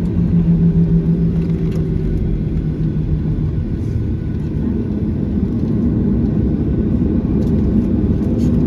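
Boeing 737-800 cabin noise: a loud, steady rumble of the CFM56 engines with a droning hum that steps up in pitch about halfway through.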